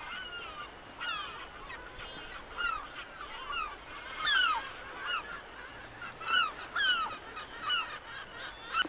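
Gulls calling over the sea below the cliff: many short downward-sliding cries, some overlapping, with the loudest about four seconds in and again around six to seven seconds in.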